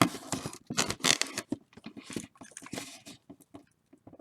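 Cardboard boxes scraping and rubbing against each other as a hobby box is worked out of a tightly packed case: a quick run of light scrapes and taps that tails off near the end.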